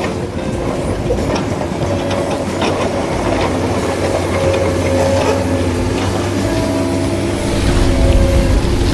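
Electric motors and gearboxes of a radio-controlled model excavator whirring as it digs and swings. The whine changes pitch and cuts in and out as the different functions are worked, over a steady hum and scattered clicks.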